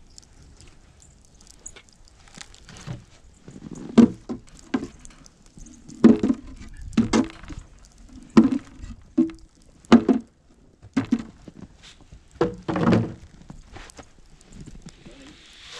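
Footsteps trudging through snow: a run of dull, thudding steps about one a second, starting about four seconds in.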